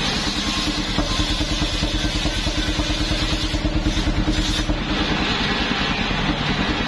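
Engine of a homemade portable circular sawmill running steadily under power, driving the spinning saw blade, with a steady hum over the firing pulses.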